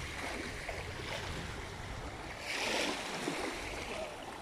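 Beach ambience: small sea waves lapping on a sandy shore, with wind. A louder rush of noise comes between about two and a half and three seconds in.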